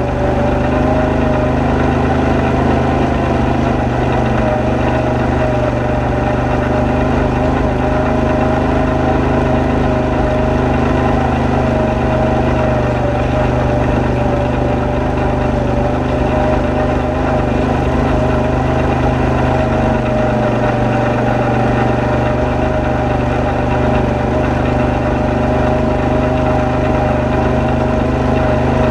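ATV engine running steadily while driving a gravel trail, its tone holding nearly even throughout.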